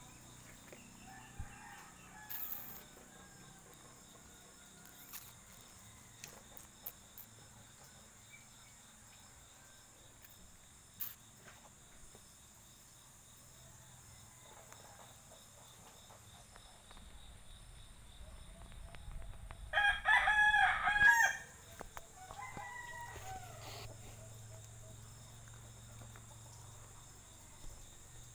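A rooster crows once, loudly, lasting about a second and a half, about twenty seconds in; a fainter call follows a couple of seconds later. A steady high insect drone and a few light clicks fill the rest.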